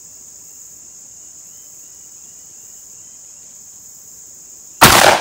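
Crickets chirring steadily in a high, even drone. Near the end comes a single very loud shot from a 12-gauge NEF single-shot shotgun firing a heavy 700-grain slug, with a trailing echo.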